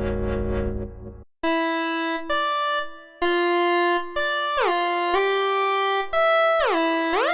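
MES Mini Red software synthesizer playing demo patches: a low, sustained tone with a pulsing top fades out about a second in. A bright, buzzy lead then plays a line of held notes, gliding in pitch between them in the second half.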